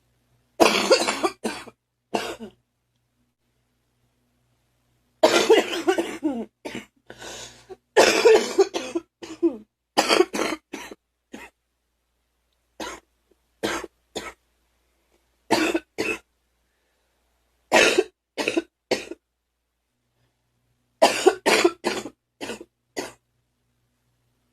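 A girl coughing in about eight fits of several coughs each, with pauses of one to three seconds between them.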